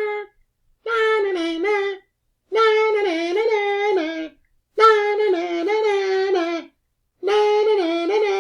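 A high-pitched voice chanting a sing-song "na na na na na" taunt over and over, in phrases of one to two seconds with short pauses between, the notes stepping up and down within each phrase.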